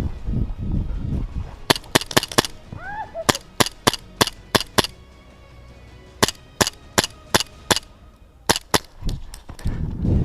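Airsoft gun firing quick single shots as sharp cracks, in four strings of three to six at about three to four shots a second. Low scuffing movement noise comes before the first string and after the last.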